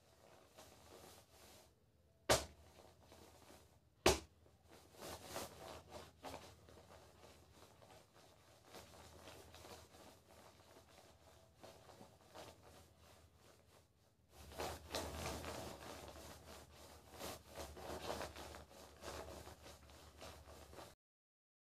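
Hands handling small parts (a plastic piece, magnets and thin wire) on a tabletop: faint rubbing and fiddling, with two sharp clicks about two and four seconds in. Louder rustling and handling follows over the last seven seconds, then the sound cuts off suddenly.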